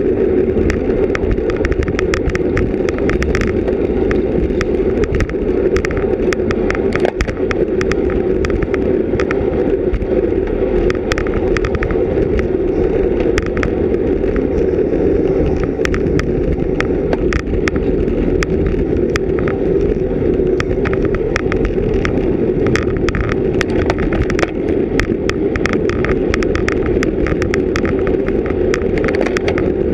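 Wind and road noise on a bicycle-mounted GoPro Hero 3+ during a road race: a steady muffled rush with frequent irregular clicks and rattles.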